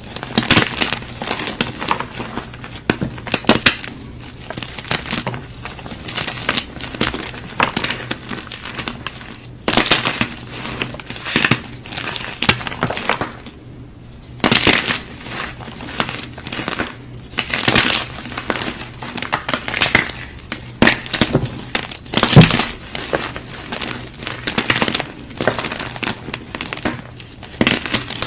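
Gym chalk being crushed and crumbled, a dense run of irregular dry crunches with a brief pause about halfway through.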